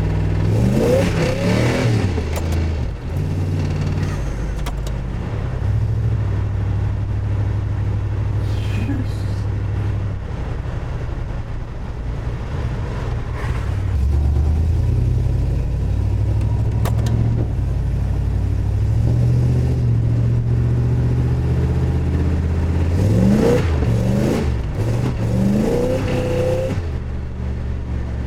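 Small-block Chevy V8 in a Volvo 740 running at a steady idle, revved briefly at the start and again several times near the end, its pitch rising and falling. The engine has excessive rod and main bearing wear, which can show as a ticking sound.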